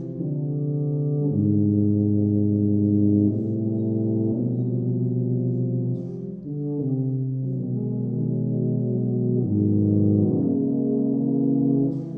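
Euphonium and tuba quartet playing slow, sustained low brass chords that shift every second or two, with a brief dip in loudness about six seconds in.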